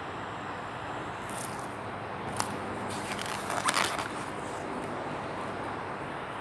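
Paper catalog pages rustling as they are handled and turned, a short crackly rustle about a second in and a longer one around three to four seconds, with a sharp click about two and a half seconds in, over a steady background hum.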